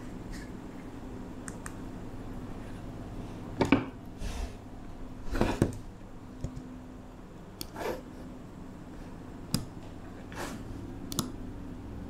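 Scattered clicks, knocks and short rustles of things being handled at a computer desk, about eight at uneven gaps, the loudest about four and five and a half seconds in, over a low steady hum.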